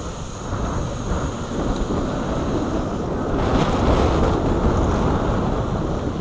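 Steady rush of wind on the microphone of a camera worn by a BMX rider racing down the track, growing louder about three seconds in.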